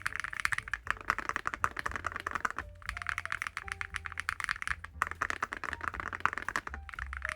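Fast, continuous typing on a mechanical keyboard fitted with full-metal keycaps, a dense run of key clacks with a few short pauses. Soft background music plays underneath.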